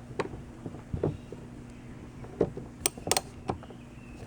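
Light metallic clicks and clinks of a socket wrench with an 8 mm socket working the bolts of a dirt bike's fuel petcock on the gas tank, about half a dozen, irregularly spaced.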